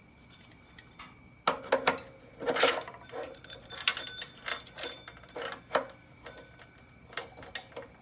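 Metal tools and parts clinking and knocking while a mini bike's chain and clutch are being fitted: about a dozen sharp, irregular knocks, some with a brief metallic ring.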